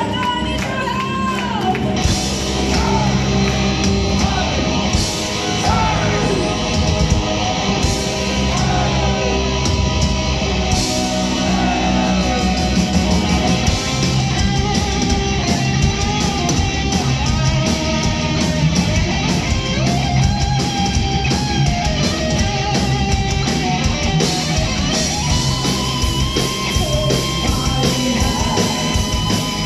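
Symphonic metal band playing live: sung vocals over distorted electric guitars and drums, loud and dense throughout.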